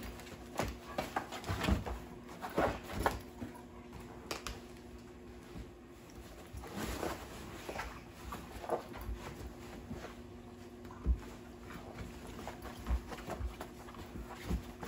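A husky puppy scrabbling at and climbing over a fabric pop-up tent on a wooden floor: irregular rustling of the tent fabric, scuffs and patter of paws, and a sharp thump about eleven seconds in.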